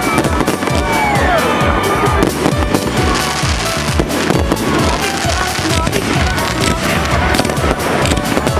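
A fireworks cake going off: a dense, continuous crackle of rapid small reports, with a falling whistle about a second in.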